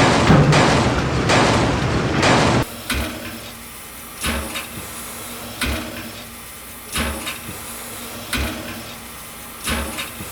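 Railway chase sound effects: a loud rushing noise that cuts off suddenly about two and a half seconds in, followed by a regular knock roughly every second and a half.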